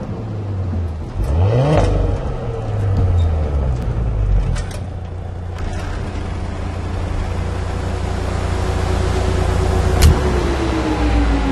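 Cinematic car sound design: a steady low engine rumble with a short rising rev about two seconds in, scattered sharp metallic ticks, a single sharp hit about ten seconds in, then a tone falling in pitch near the end.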